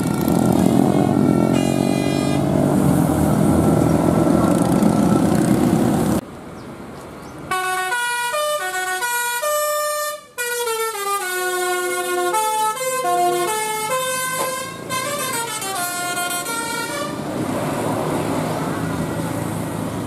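Tour bus 'telolet basuri' multi-tone musical air horn playing a tune in stepped notes that run down and then back up, over bus engine and road noise. A few seconds in there is a brief drop, then the melody is clearest through the middle, and engine noise takes over again near the end.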